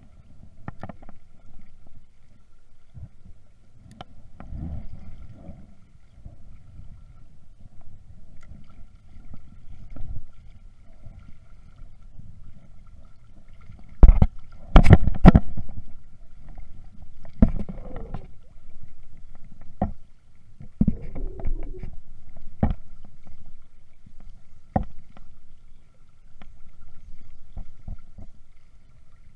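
Uneven low rumble of wind and river water, broken by scattered sharp knocks and clicks from a spinning rod and reel being handled right at the microphone; the loudest is a quick cluster of knocks about halfway through.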